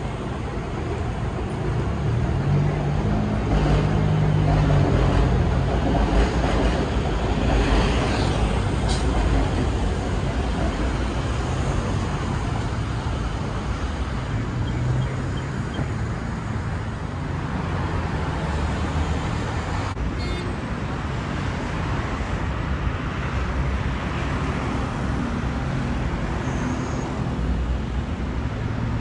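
Steady road traffic on a busy multi-lane city street: car engines and tyre noise passing, louder for several seconds about two seconds in as heavier vehicles go by.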